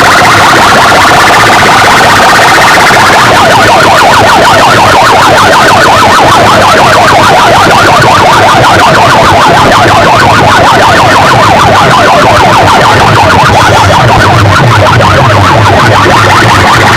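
A competition sound system's loudspeakers blasting a fast-warbling, siren-like tone at full volume, heavily distorted. A low bass pulse grows stronger in the second half.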